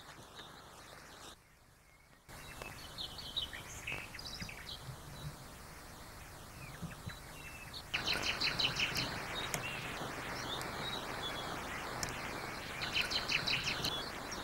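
Small birds chirping in short bursts of quick high notes over a steady background hiss. The hiss drops out briefly about a second and a half in, then comes back. It grows louder about eight seconds in, where the chirping turns busier.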